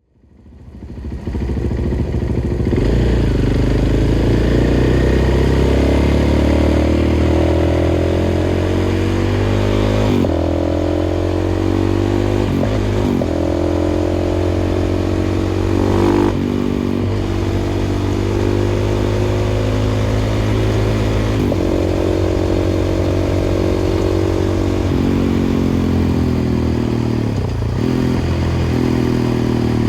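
KTM 500 EXC-F single-cylinder four-stroke engine through an FMF exhaust, pulling hard on the move. The note rises and then drops at each gear change, several times over, with a falling, slowing note near the end.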